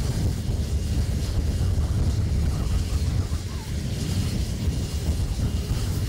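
Sikorsky CH-148 Cyclone helicopter running on the ground with its rotors turning. Its twin turboshaft engines give a steady, fluttering low rumble under a faint high whine, with wind buffeting the microphone.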